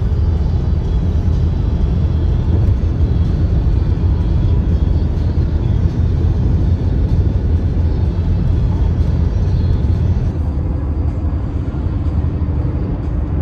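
Steady low rumble of road and engine noise heard inside a car cruising on a motorway. About ten seconds in, the higher hiss drops away.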